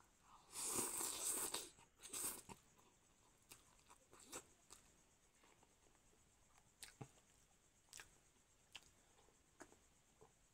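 Chow mein noodles slurped off chopsticks in one long slurp about half a second in, then a shorter slurp, followed by scattered small clicks of chewing.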